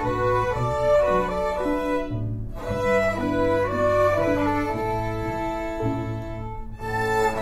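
Bowed string ensemble playing a slow, sustained piece: violin melody over lower string lines, with short breaks between phrases about two seconds in and again near the end.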